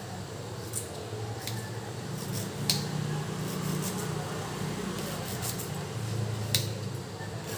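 Green chillies being cut: a few sharp, irregular cutting clicks, two of them louder than the rest, over a low steady background hum.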